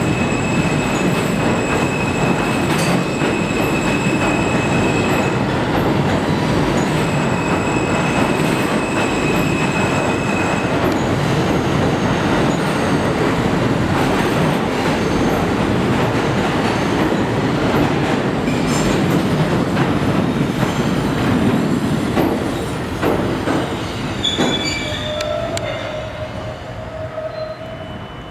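New York City Subway R160 train running along the track in an underground station: a loud, steady rumble and clatter of steel wheels on rail. A high wheel squeal comes twice in the first ten seconds. Over the last several seconds the noise fades as the train moves off.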